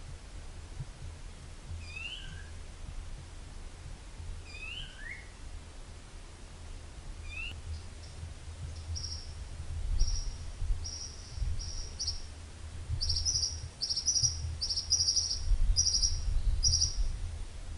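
Wild birds calling in a wetland. A rising two-part call repeats every two to three seconds, then from about halfway a quick series of short, high buzzy notes takes over and grows denser toward the end. A low rumble runs underneath.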